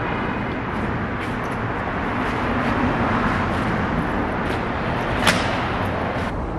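Steady hum of vehicle and traffic noise, with one sharp click about five seconds in.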